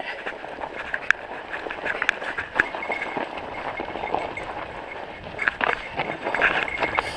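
Mountain bike riding along a snow-covered trail: steady tyre and riding noise on the snow, broken by sharp clicks and rattles from the bike over bumps.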